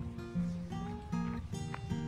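Background music led by a plucked acoustic guitar.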